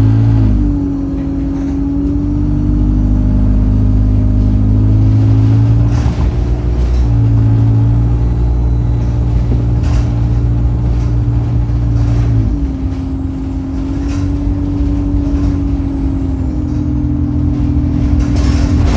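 Bus diesel engine running under way, with a high turbocharger whistle rising and falling above it. The engine note shifts pitch several times as the Allison automatic gearbox changes gear, with a few knocks and rattles.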